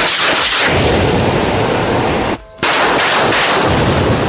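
Truck-mounted multiple rocket launcher firing a salvo: a loud, continuous rush of launches that breaks off briefly about two and a half seconds in, then resumes.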